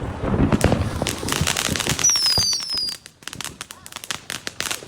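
Fireworks going off: dense, rapid crackling and popping, with two short high whistles that fall slightly in pitch about two seconds in. At about three seconds the crackling drops off and carries on thinner and quieter.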